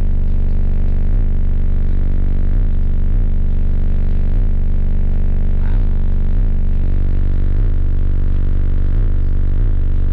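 Car-audio system of four Resilient Sounds v2 12-inch subwoofers on a Taramp Smart 8K amplifier playing bass-heavy music very loud, heard inside the truck cab: a deep sustained bass note that drops out briefly about once a second in time with the track.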